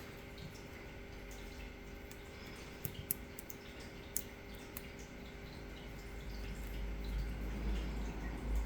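Faint, sparse metallic ticks of lock picks and a tension wrench working the pins inside a lock cylinder during picking. A low rumble builds near the end.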